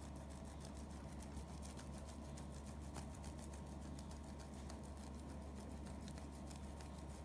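A boiled egg rubbed quickly over a metal hand grater, faint scraping strokes several times a second, over a low steady hum.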